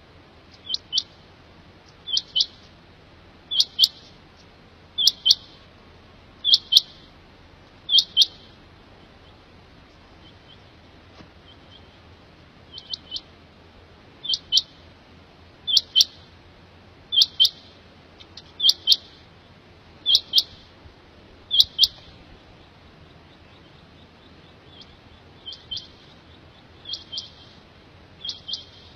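Quail calling: a rapid phrase of two or three short, high notes, repeated about every second and a half. The phrases come in runs of six or seven, with pauses of a few seconds between runs.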